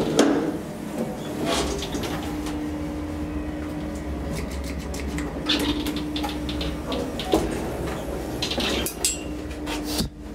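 KONE traction elevator running: a steady low hum with a steady tone above it, overlaid by frequent metallic clicks and rattles.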